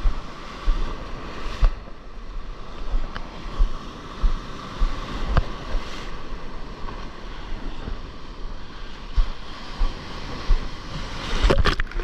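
Breaking surf and foaming whitewater washing around a stand-up paddleboard as it crosses small waves, with wind buffeting the microphone and a few sharp splashes. A cluster of louder splashes comes near the end as the paddle strikes the water.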